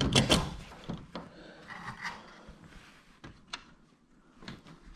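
Clicks and knocks of garage door hardware being handled as a hinge with a new roller is fitted back onto the door section: a quick cluster of knocks at the start, then a few scattered single clicks.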